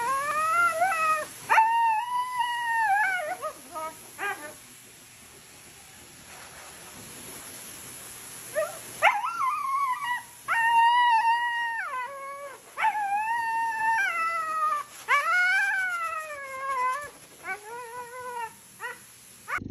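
A dog howling and whining in drawn-out, wavering cries that rise and fall in pitch. After two long cries there is a pause of about five seconds, then a string of shorter cries that grow briefer and lower toward the end.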